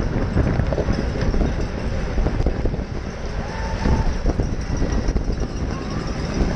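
Wind buffeting a bike-mounted action camera's microphone at racing speed, mixed with tyre and road noise from a pack of road bikes. A short faint high tone sounds about three and a half seconds in.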